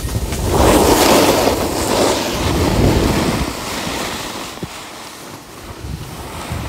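Snowboard sliding through fresh snow with wind on the microphone: a loud rush of snow scraping under the board from about half a second in to about three seconds in, easing off after that.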